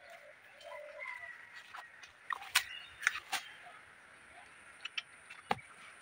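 Birds calling faintly in the background, cluck- and whistle-like, mostly in the first couple of seconds. Sharp short clicks or snaps cut through them, four in quick succession around the middle and one more near the end; these clicks are the loudest sounds.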